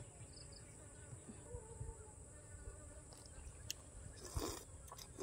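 Steady high-pitched drone of an insect chorus, with a brief soft mouth noise of eating noodles a little over four seconds in.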